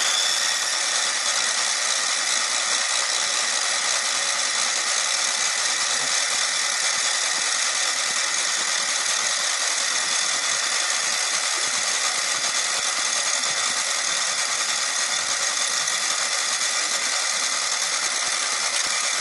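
Electric starter cranking the snowblower's Tecumseh engine in one long, steady run without the engine catching.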